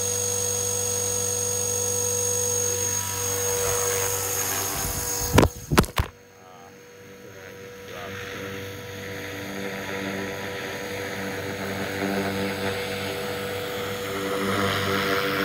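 Blade 330S electric RC helicopter with an X-Nova XTS brushless motor, flying with a steady motor and rotor whine that carries a high tone. About five seconds in come two loud knocks as the phone that is recording falls and hits the ground. After that the helicopter sounds quieter and muffled, slowly growing louder again.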